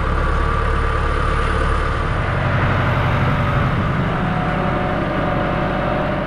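Tractor engine running steadily, its note shifting slightly about two seconds in.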